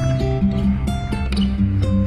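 Background music with plucked guitar and a steady bass line.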